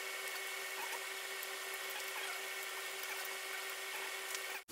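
A steady machine hum with a constant low tone over an even hiss.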